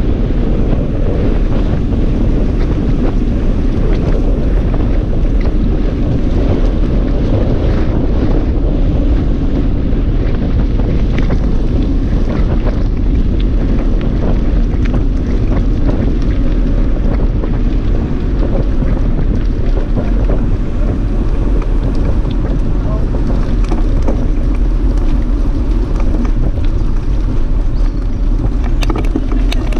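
Steady low rumble of wind buffeting the microphone of a camera riding along on a mountain bike, mixed with the rolling noise of the bike's tyres on the lane.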